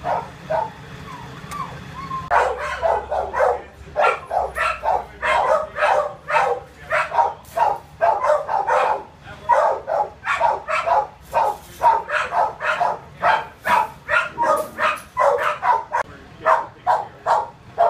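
Dogs barking over and over, a quick string of barks several a second that starts about two seconds in.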